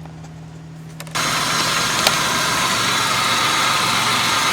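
A 2003 Buick LeSabre's 3800 V6 engine idling steadily. It comes in suddenly about a second in, after a faint hum, and a single click is heard shortly after.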